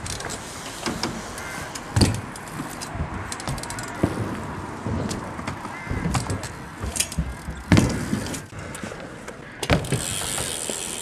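BMX bikes riding a skatepark's ramps: tyres rolling and the freewheel hubs ticking, with two sharp landing impacts, about two seconds in and near eight seconds. A steady hiss starts near the end.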